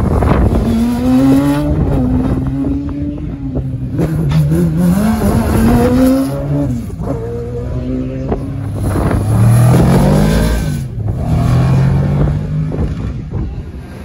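Open-cockpit sports-racing car accelerating hard away along a sprint course. Its engine revs rise and fall back sharply with each upshift, about three times, before the sound eases toward the end.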